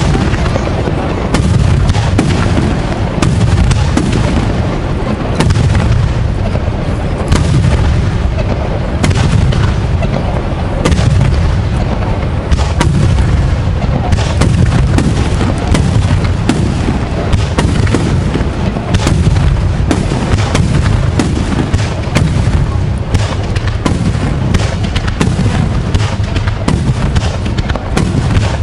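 Aerial fireworks shells bursting in a continuous barrage: many overlapping booms and sharp reports a second, with no let-up.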